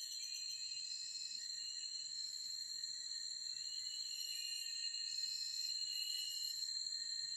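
Forest ambience: a steady, high-pitched drone of several insects calling at once, with faint bird calls in the middle of the stretch.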